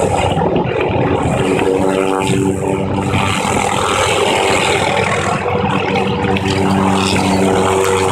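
Hughes 500D helicopter flying low close by: loud, steady running of its turbine engine and main rotor, a constant hum of several held tones over a noisy wash.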